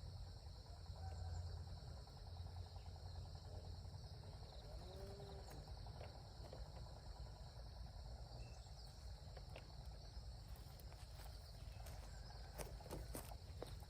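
Faint, steady chirring of insects outdoors, under a low rumble, with a few sharp clicks near the end.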